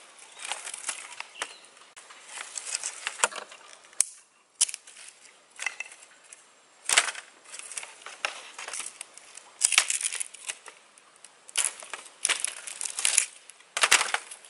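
Bamboo being split and pulled apart into thin strips by hand: irregular bursts of rasping, tearing fibre with a few sharp cracks, coming in quicker runs in the second half.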